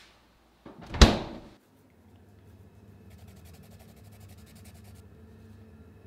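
Refrigerator door swung shut with a single loud thud about a second in. A steady low hum follows.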